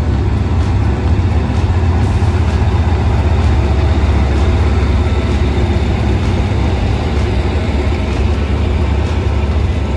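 Diesel-electric locomotive at the head of a passenger train, its engine running close by with a steady, heavy deep rumble.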